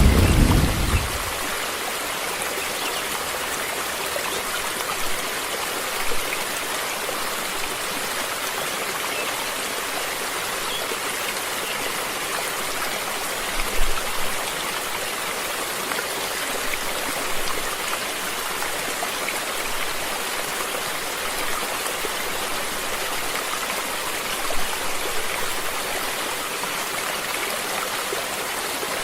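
Stream water flowing steadily in an even, continuous rush. A deep rumble dies away in the first second, and there are a few faint low bumps later.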